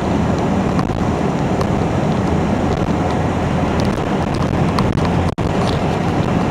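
Jet airliner on final approach passing low overhead: a loud, steady low rumble, with a brief break in the sound about five seconds in.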